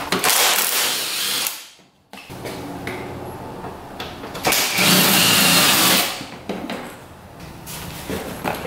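A small power tool runs in two loud stretches, about a second and a half each, near the start and around the middle, with quieter stretches between and after.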